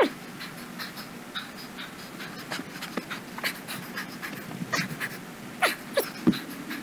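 A man panting hard under exertion, with quick, sharp breaths throughout; a few louder, harsher gasps come near the end.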